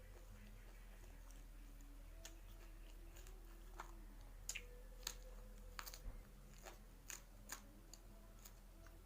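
Faint close-up eating sounds: a person chewing, with a scattered series of sharp crunches and mouth clicks through the middle.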